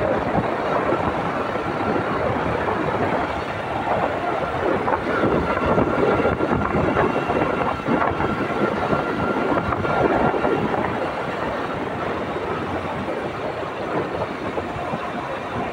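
Steady rush of wind and road noise from a motorcycle moving along a road, with a faint steady whine that fades out about ten seconds in.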